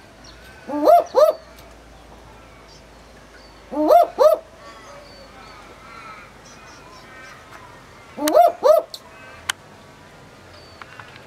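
Barking owl (Ninox connivens) giving its double-note 'woop woop' bark three times, each call a pair of short notes that rise and fall in pitch, about three to four seconds apart.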